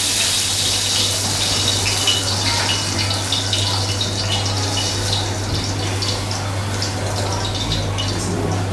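Oil sizzling and crackling in a hot cast-iron grill pan over a gas burner, the hiss easing off gradually, with a steady low hum underneath.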